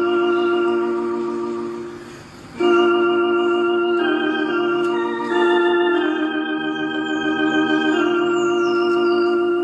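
Electronic organ playing held chords that change every second or two. About two seconds in the sound fades away, and a new chord comes in strongly half a second later.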